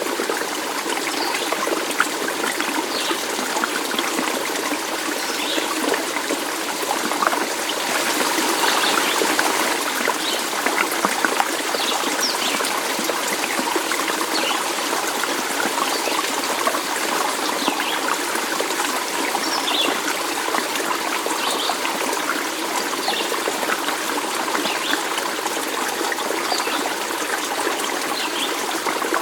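Stream water trickling and babbling steadily over rocks, a continuous rushing wash with small splashes.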